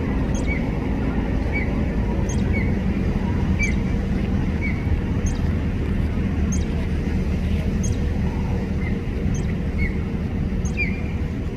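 A small songbird repeating a short chirp about once a second, each with a thin high note, over a steady low rumble.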